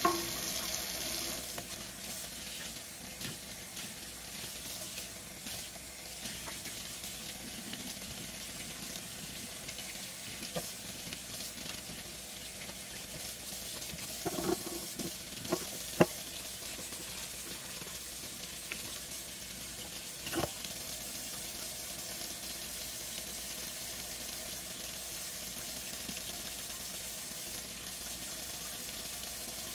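Kitchen faucet running steadily into a stainless steel sink, the stream splashing through a paintbrush's bristles as latex stain is rinsed out of it. A few sharp knocks come about halfway through, and one more a little later.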